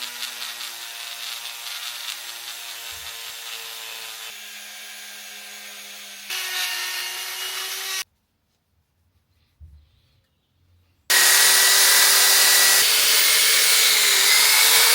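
Electric power tool with a buffing wheel running against a motorcycle's metal rocker cover, polishing it with metal polish. The motor whines and shifts pitch twice as the load changes. It cuts off about eight seconds in, then starts up again louder about three seconds later.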